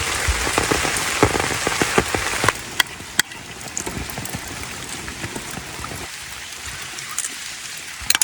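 Heavy mountain rain falling, with large drops striking close by. About two and a half seconds in the rain noise drops off sharply, leaving a quieter hiss and scattered single drops.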